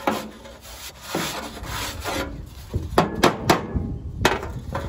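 A cloth rag scrubbing a shallow sheet-metal drip tray in repeated rubbing strokes, with a few sharp knocks about three seconds in and one more near the end as the tray is handled.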